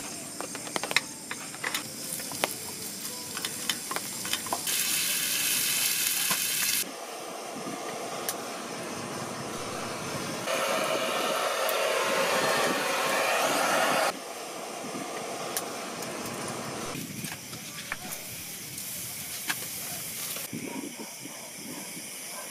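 Camp cooking sounds in a string of short shots: small clicks and taps, and short stretches of hissing. In the middle a handheld gas torch hisses steadily for about four seconds as its flame lights lumps of charcoal in a grill. A fainter hiss with light crackle follows near the end.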